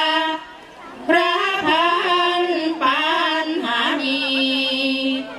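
Unaccompanied female singing of sarabhanya, Thai Buddhist chanted verse: a phrase breaks off briefly about half a second in, resumes with bending sung notes, and ends on a long held note near the end.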